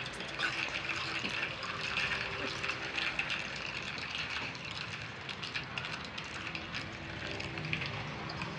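Chocolate chips being eaten: a dense run of crackly crunching and chewing clicks over a steady hiss.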